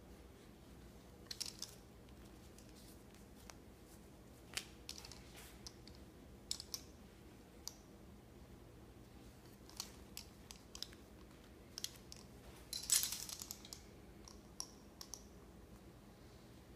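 Pizza cutter wheel rolling through stacked flour tortillas on a wooden butcher-block board: scattered soft clicks and scrapes, with a louder rustling clatter about thirteen seconds in.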